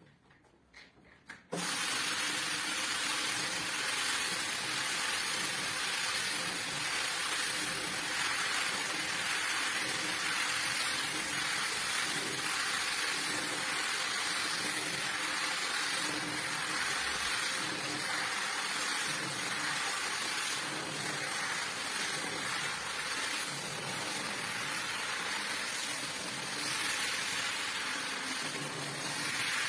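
Water spraying in a steady, loud hiss, starting suddenly about a second and a half in, as the rug is washed.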